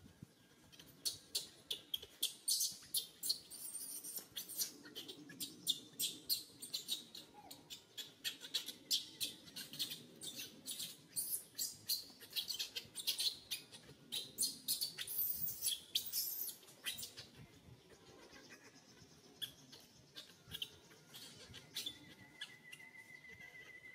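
Newborn macaque squeaking: a run of short, high-pitched squeaks, about two or three a second, which stops after about seventeen seconds.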